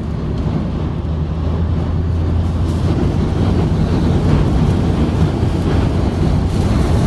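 Strong wind rushing over a moving car, over the steady low rumble of the car itself.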